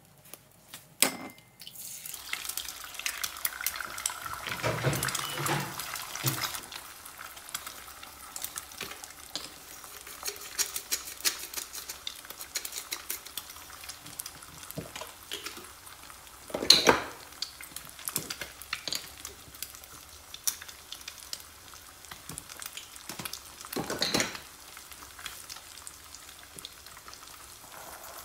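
Egg frying in hot oil in a non-stick pan: a steady crackling sizzle that starts about two seconds in, with a few louder clatters now and then.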